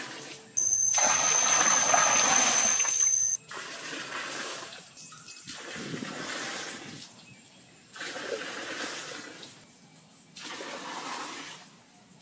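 Water gushing from a bucket into a partly filled pool, in a series of short pours joined by abrupt cuts. The loudest pour is about a second in, and the later ones grow fainter.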